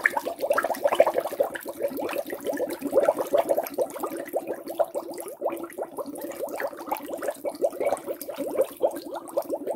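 Air blown hard through a bombilla (metal mate straw) sunk in a metal basin of water, making a continuous, dense, rapid bubbling.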